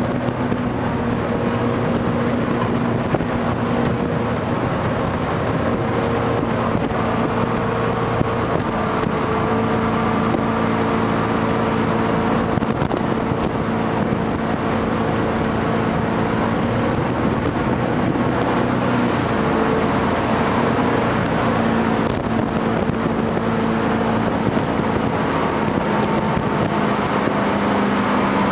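Jet boat's engine running steadily under way, its note shifting a little up and down now and then, over a constant rush of water and wind noise.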